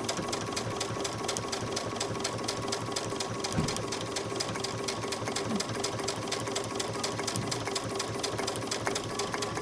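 Electric sewing machine running at a steady speed, its needle stitching in the ditch through cork fabric and lining: a fast, even ticking of stitches over a constant motor hum.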